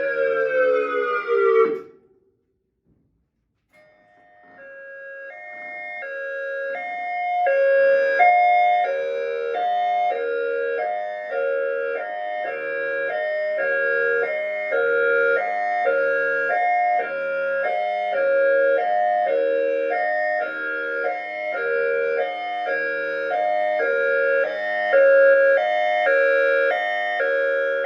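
ACA Alertronic AR-1600 dual-tone electronic siren finishing its Attack signal with a falling wail that cuts off about two seconds in. After a short pause it starts its Hi-Lo signal: two pitches alternating steadily, swelling in loudness over the first few seconds.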